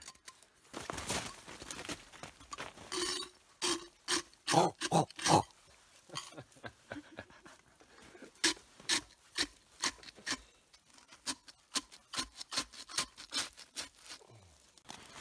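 Ice and snow being scraped up and gathered from frozen ground by hand: a long series of irregular crunches and knocks, busiest about four to five seconds in and again in the second half.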